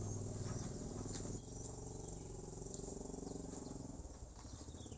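Faint outdoor ambience: insects chirping in short, scattered calls over a low steady hum. The hum drops a little about a second and a half in.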